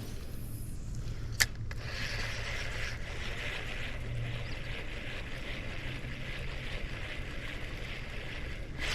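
River water running with a steady hiss over a low rumble, and one sharp click about one and a half seconds in.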